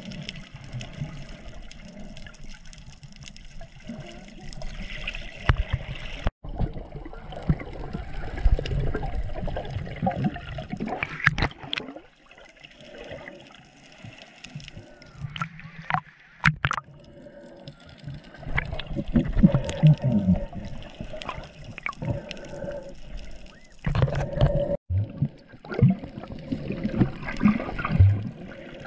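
Water sloshing and gurgling around a GoPro camera during snorkeling, with scattered sharp splashes.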